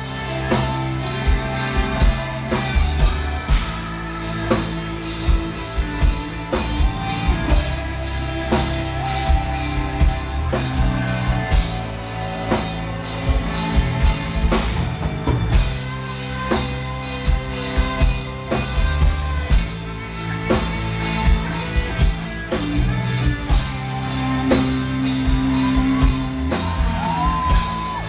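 Gothic metal band playing live: a drum kit, guitars and bass, with a singer's voice.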